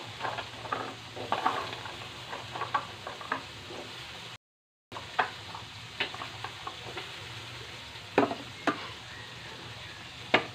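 Tomato-and-chili sauce with green beans sizzling in a stainless steel wok, with scattered sharp clinks and taps. The sound cuts out completely for about half a second a little past four seconds in.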